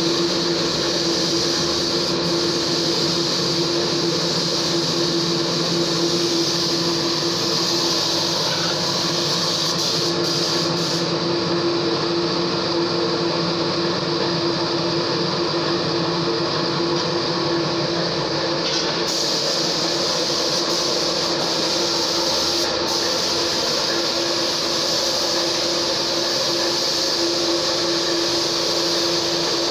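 A machine running steadily with a constant hum and a hiss above it, unchanging throughout.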